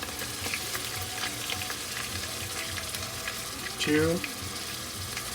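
Lightly browned onions frying in canola oil, a steady sizzle, as ginger garlic paste is spooned in and stirred.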